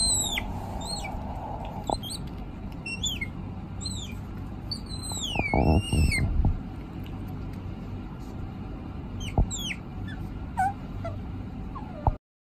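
Young otter squeaking: a series of short, high, downward-sliding chirps, bunched in the first half with a few more near the end.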